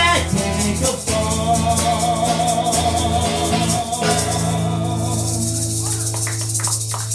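Live acoustic performance: a man sings a long held note with vibrato over a strummed acoustic guitar while a pair of maracas rattle along. The voice then drops out and a guitar chord rings on with a few last strums.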